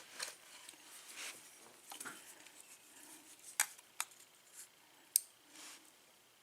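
Light metallic clicks and scraping from small parts of a Kwikset pin-tumbler cylinder lock being worked apart with a tool, as its top pins are checked. A few sharp ticks stand out in the second half.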